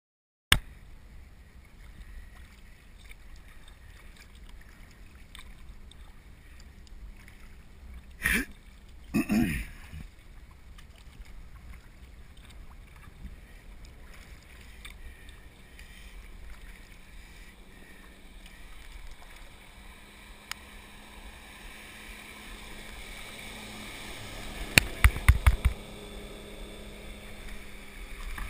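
Sea kayak on the water, with paddle strokes and the water washing along the hull, and two brief loud knocks about eight and nine seconds in. Near the end a motorboat's wake reaches the kayak: a quick run of heavy thumps as the waves hit the hull, then louder breaking, foaming water all around.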